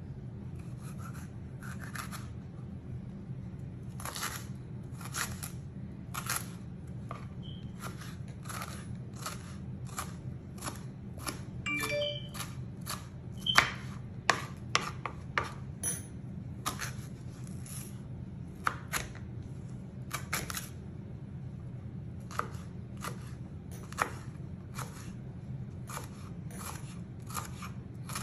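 Knife dicing a green pepper on a plastic cutting board: irregular taps of the blade hitting the board, about one or two a second, over a steady low hum.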